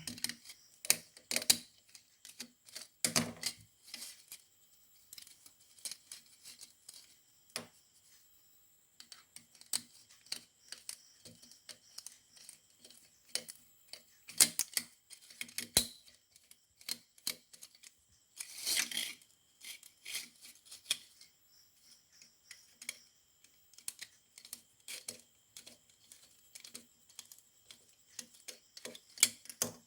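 Irregular clicks, taps and small knocks of wires and small tools being handled while switch connections are wired, with a brief scraping rustle about two-thirds of the way through.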